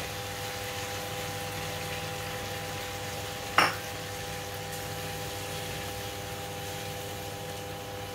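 Pad thai ingredients and sauce frying gently in a frying pan as a silicone spatula turns them, over a steady hum. There is one sharp knock of the spatula against the pan about three and a half seconds in.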